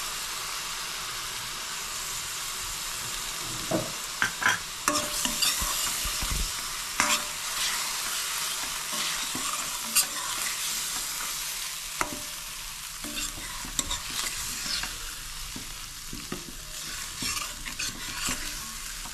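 Potatoes and spice paste sizzling in oil in a stainless steel kadai, with a steady frying hiss. From about four seconds in, a metal spoon scrapes and clicks against the pan as the masala is stirred and fried.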